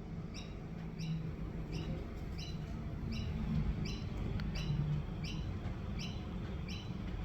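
A small bird chirping over and over at an even pace, about ten short high chirps, over a steady low rumble.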